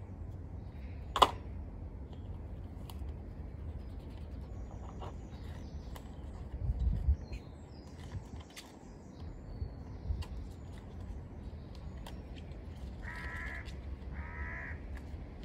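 Two short harsh animal calls near the end, over a steady low rumble, with a sharp click about a second in and a low bump about halfway through.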